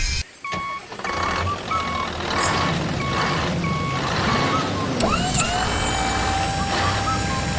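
Vehicle reversing alarm beeping at a steady pace, about one beep every three-quarters of a second, over a low engine hum. About five seconds in, gliding chirps and a steady high tone join in.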